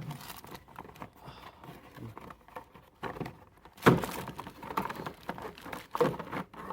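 Handling of a new test light and its packaging: scattered taps and rustles, with a sharp knock about four seconds in and another about six seconds in.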